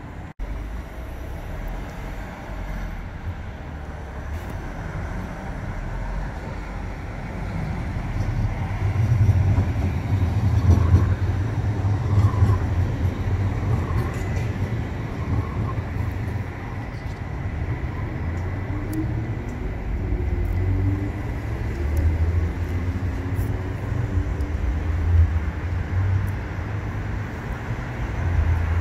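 CAF Urbos 100 tram in motion: a low rumble that swells about eight seconds in, with faint whining tones that rise and fall.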